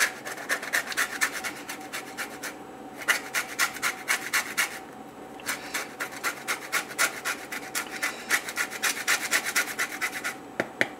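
Lemon rind being zested on a fine handheld rasp grater: quick scraping strokes, about four a second, with two short pauses.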